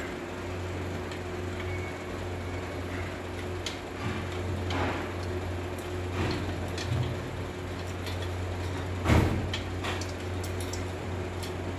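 Scattered clicks and knocks of metal parts being handled while the weighing machine's pole is bolted on with washers and nuts, with one louder knock about nine seconds in, over a steady low hum.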